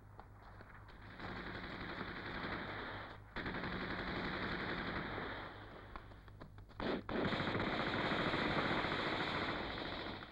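Long bursts of automatic gunfire in a film battle soundtrack. The firing starts about a second in, breaks briefly near three seconds, thins to scattered single shots around six seconds, and comes back louder about seven seconds in.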